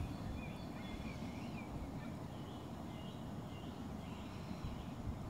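Steady low outdoor rumble, like wind on the microphone and distant traffic, with faint high warbling chirps over it.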